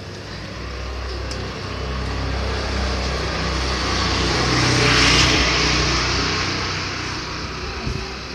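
A motor vehicle passing by: engine and tyre noise swell to a peak about five seconds in, then fade away.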